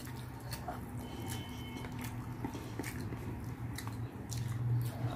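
Close-up eating sounds: a person chewing with small wet mouth clicks and smacks, while rice and lentil dal are squished together by hand on a plate. A low steady hum runs underneath.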